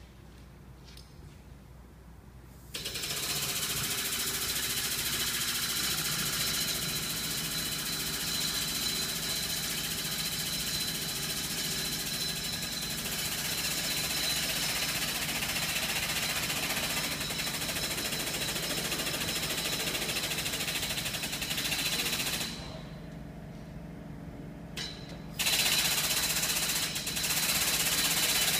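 Air-over-hydraulic pump of a ProLift T5501 lawn mower lift running on compressed air, a loud steady hiss and rattle as it jacks a ride-on mower up. It starts about three seconds in, stops for about three seconds near the end, then starts again.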